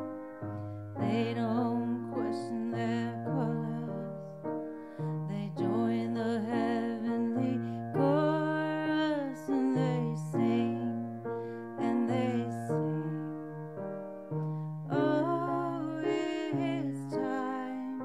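A woman singing a slow, gentle ballad with piano accompaniment, holding long notes with vibrato between phrases.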